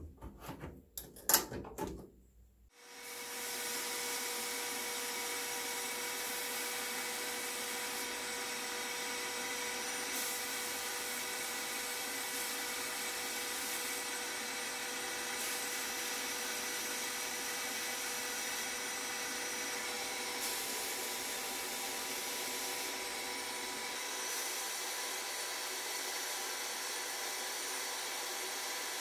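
Clacks of a sandblasting cabinet's door and its metal latches being shut. About three seconds in, a steady hiss of compressed-air abrasive blasting starts inside the cabinet as the nozzle strips rust from the wrench's steel parts.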